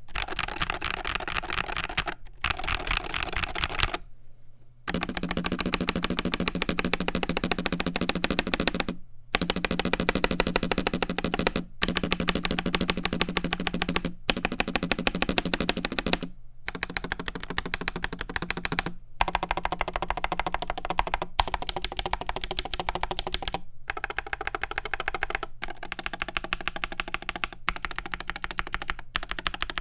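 Continuous fast typing on an Akko TAC75 HE magnetic Hall-effect keyboard with Akko Glare switches, an aluminium plate, PBT double-shot keycaps and a plastic tray-mount case. The keystrokes come as a dense clatter, broken by brief silent gaps every couple of seconds, with a longer gap about four seconds in.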